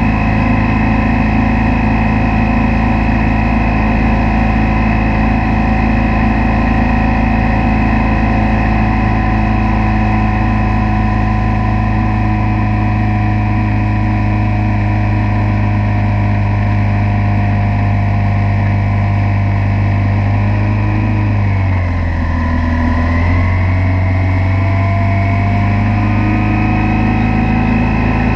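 Motorboat engine running steadily at towing speed. About three-quarters of the way through, its note drops briefly and then climbs back up as the throttle eases and opens again.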